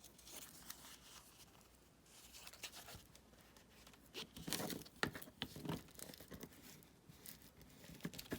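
Paper rustling and scraping as it is folded and creased by hand, with a few light taps, busiest a little past the middle.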